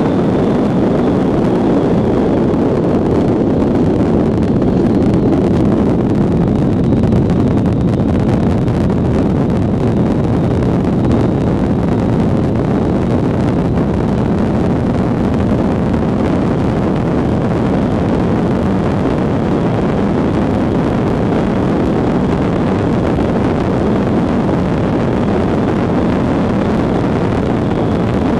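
Steady rumbling hiss of an ice yacht's runners sliding at speed over black ice, mixed with wind buffeting the microphone.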